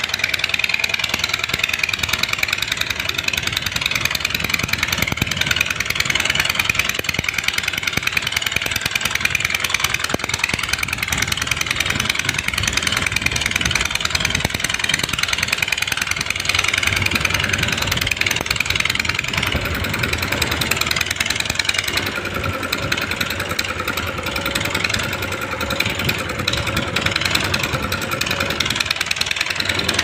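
JCB 3DX backhoe loader's diesel engine running steadily as the machine moves about. A steadier hum comes in about two-thirds of the way through.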